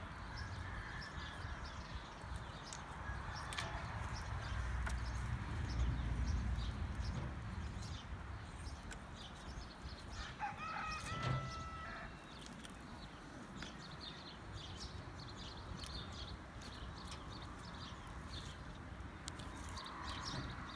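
Chickens clucking faintly, with one clearer call about ten seconds in, amid scattered short high chirps.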